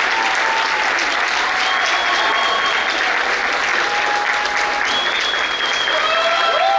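A large audience applauding, dense steady clapping with voices calling out over it; the cheering swells near the end.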